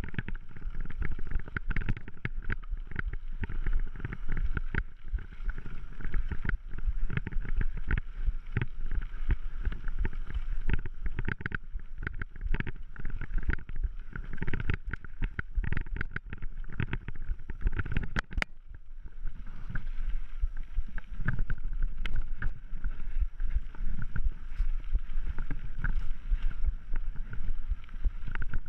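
Mountain bike ridden fast over a rough dirt singletrack: constant rattling and knocking from the bike over bumps and roots, with tyre rumble and wind on the microphone, briefly quieter a little past the middle.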